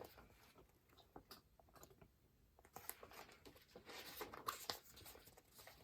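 Faint rustle of a picture book's paper pages being turned, with a few small clicks and a soft rustling stretch in the middle.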